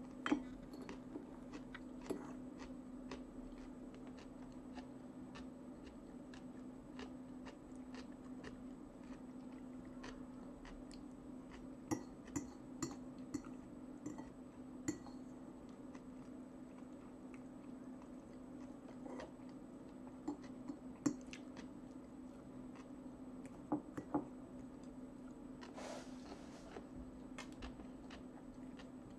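Eating sounds: a metal fork clinking and scraping on a china plate, with chewing of salad and fish sticks. The clinks come scattered, with runs of sharp ones about twelve seconds in and again about twenty seconds in, over a steady low hum.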